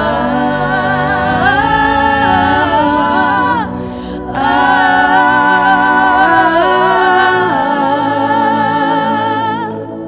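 Spontaneous worship singing: a voice holding long, gliding notes in two phrases, with a short break about four seconds in, over steady sustained instrumental backing.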